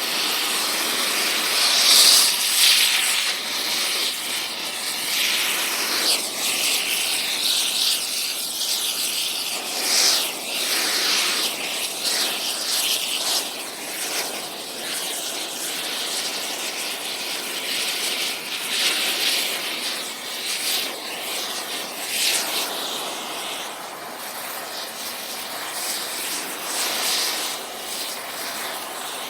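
Air torch working on metal: a continuous, loud, rushing hiss of the flame that swells and eases every second or two.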